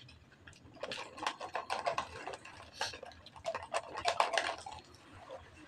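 Irregular light clicks and taps of utensils and cup lids being handled while eating, coming in clusters and thinning out near the end.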